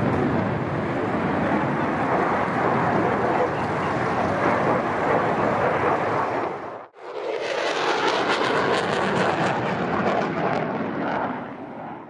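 Aircraft engine noise, a steady rushing drone. It cuts out abruptly about seven seconds in and comes back at once.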